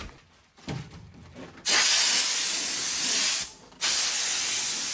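Loud, steady rushing hiss that starts abruptly about a second and a half in, breaks off for a moment about three and a half seconds in, then resumes.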